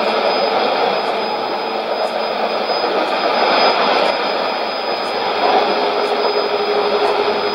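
Shortwave test transmission heard through a Sony ICF-2001D receiver: a steady rushing noise fills the radio's audio, with a thin high tone held throughout. A lower steady tone joins about five and a half seconds in.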